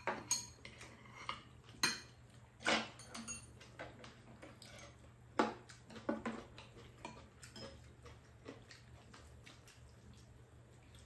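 Spoons and chopsticks clinking and scraping against ceramic bowls as two people eat: a scatter of sharp clinks, the louder ones in the first half and fainter ones after.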